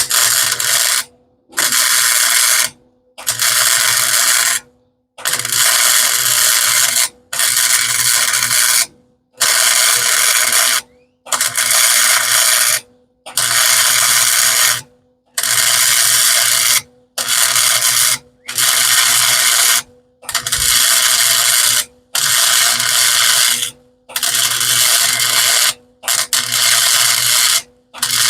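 Welding arc crackling in about fifteen short bursts of a second or two each, with brief pauses between them: stitch welding a shock mount onto a roadster's frame, with a faint steady hum under each burst.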